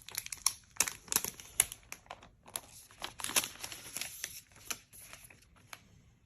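Plastic packaging crinkling and tearing in irregular crackles and rustles as it is unwrapped by hand.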